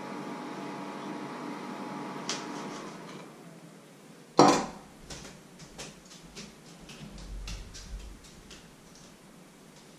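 A steady hum fades out in the first few seconds. Then a knife and other kitchen utensils are put down on a wooden worktop: one loud clattering knock with a short ring about four seconds in, followed by a few seconds of light, irregular clicks and taps.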